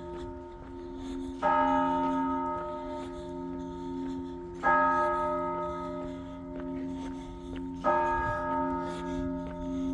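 A church bell tolling slowly on the same note, struck three times about three seconds apart, each stroke ringing on over a lasting low hum: the bell rung as the call to worship.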